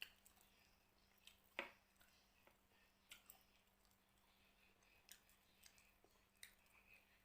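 Faint chewing and soft mouth clicks of someone eating fried carp, a few sharper clicks scattered through, the strongest about a second and a half in.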